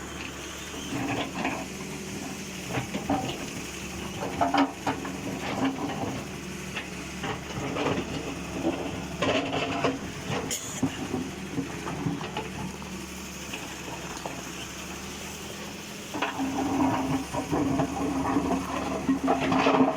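Heavy excavator diesel engine running, with scattered clanks and knocks and some hiss. The engine grows louder about four seconds before the end.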